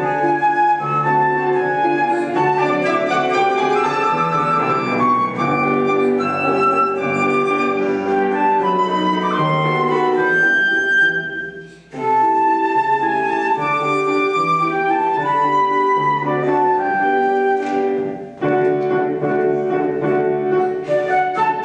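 Flute playing a lilting waltz melody over piano accompaniment. The music pauses briefly about halfway through at the end of a phrase, then resumes.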